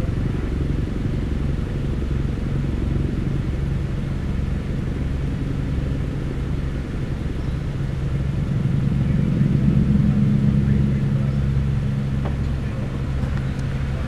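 Engine running with a steady low drone, a little louder a few seconds past the middle.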